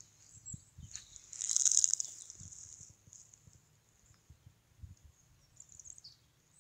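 A burst of rustling about a second and a half in as a cast deer antler is picked up out of dry grass, with a few faint bird chirps near the end.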